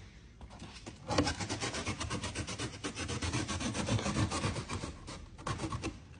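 Rapid scraping and rubbing of cardboard packaging being worked open, starting about a second in and easing off near the end.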